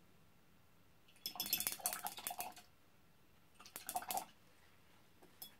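A paintbrush rinsed and rattled in a water jar between colours, clinking against the jar in two bursts: a longer one just over a second in and a short one about a second later.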